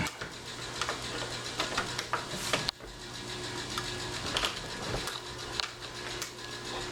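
Scattered metal clicks, knocks and scraping from work on a deadbolt lock as it is being taken off a door, over a steady low hum. The loudest knock comes about two and a half seconds in.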